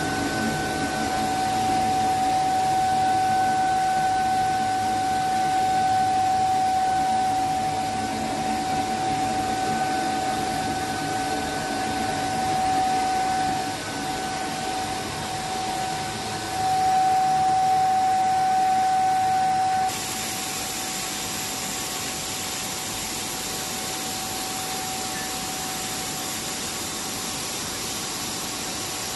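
Enamelled flat copper wire production machinery running: a steady mechanical hum with a constant whining tone. About two-thirds through, the sound changes abruptly to a brighter, even hiss and the whine fades.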